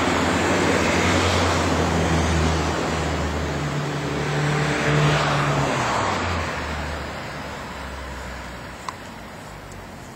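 A motor vehicle passing close by on the road, its engine and tyre noise loud for the first several seconds and then slowly fading away.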